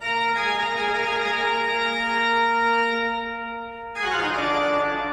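Organ music: a loud held chord comes in suddenly and sustains, then moves to a new chord about four seconds in.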